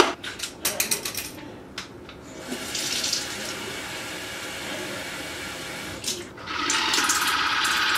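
A few plastic clicks as a water flosser's reservoir is handled, then tap water running for a few seconds. About six and a half seconds in, the water flosser's pump motor starts with a louder steady hum and jet.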